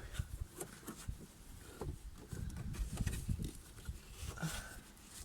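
A car seat belt and its plastic trim being handled as the twisted webbing is worked loose: scattered clicks, knocks and rustles, with heavier handling noise around the middle.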